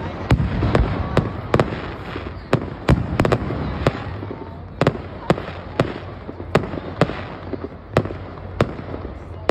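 Aerial fireworks going off in quick, irregular succession: sharp cracks about two a second over a continuous low rumble of booms.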